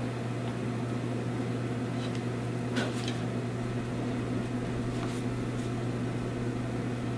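Steady low hum of room noise, like a fan or appliance running, with a couple of faint light ticks about three seconds in.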